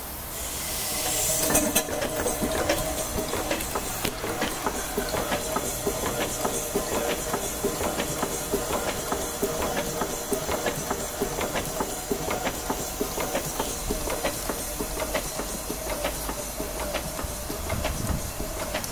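Vertical twin-cylinder reversing steam engine running on compressed air: a steady, quick clatter of exhaust beats and valve gear, with a burst of air hiss in the first couple of seconds.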